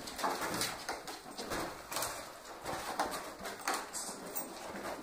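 Sheprador puppy chewing and gnawing on the balloon weight: a run of irregular clicks and crackles, several a second.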